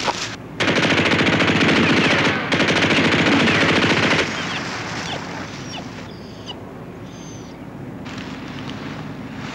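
Machine-gun fire in two long rapid bursts, one right after the other, stopping about four seconds in. A quieter steady noise with a few faint high whistles follows.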